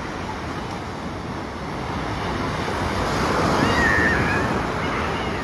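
Sea surf washing onto a beach, mixed with wind noise on the microphone. It swells louder about three to four seconds in as a wave comes in.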